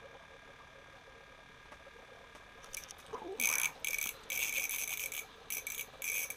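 Small ice-fishing reel being cranked in short stop-start spurts, giving a high buzzing chirr, as a hooked perch is reeled up. The reeling starts about three seconds in.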